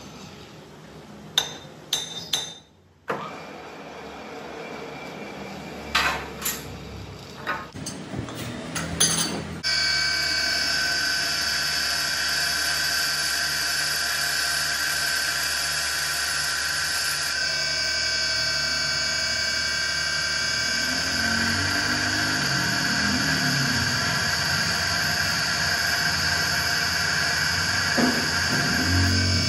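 A few sharp metallic knocks and clicks, then from about ten seconds in a bench grinder runs steadily while a lathe cutting tool bit is ground against its wheel, a continuous grinding hiss over a steady whine.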